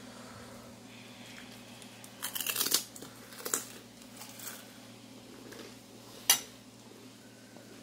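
Crisp crackling and crunching of crisp puri shells being handled, in a quick cluster about two seconds in and a few smaller crackles after, then one sharp click about six seconds in, over a faint steady hum.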